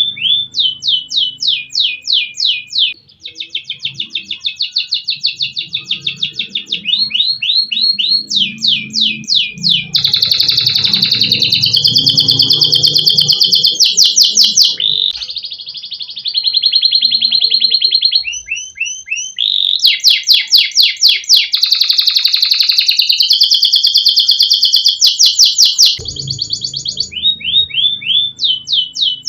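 Domestic canary singing a long unbroken song: fast trills and rapid repeated notes, switching from one phrase to the next every second or two.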